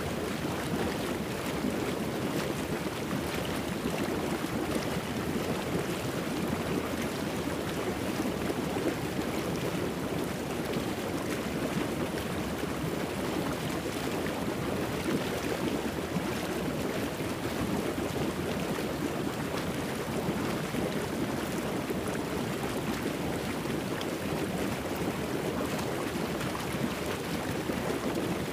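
Steady rushing noise like surf or wind, even and unbroken with no swell or pauses: the masking track of a subliminal recording, with the affirmations layered under it.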